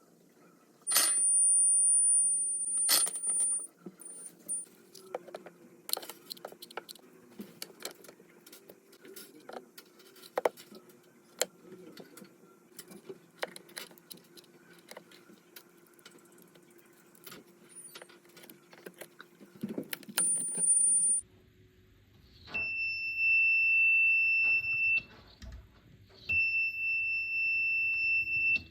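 Electronic buzzer of a homemade door alarm sounding in steady tones. First a very high-pitched whine for about two and a half seconds, and briefly again near the twenty-second mark. Near the end a lower beep sounds twice, each for about two and a half seconds, with many small clicks and taps from handling in between.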